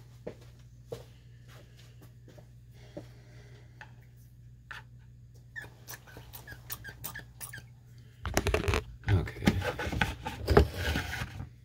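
Scattered light clicks and taps from small carburetor parts being handled, then about three seconds of loud rustling and bumping near the end.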